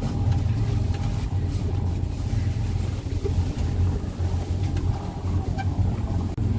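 Steady low engine hum on a motor trawler, running evenly with no change in pitch.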